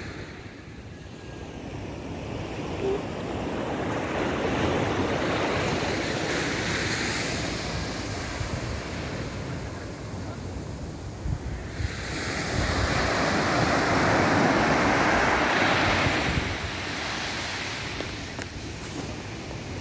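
Surf breaking and washing up a sand beach, swelling loud twice and easing back, with wind buffeting the microphone.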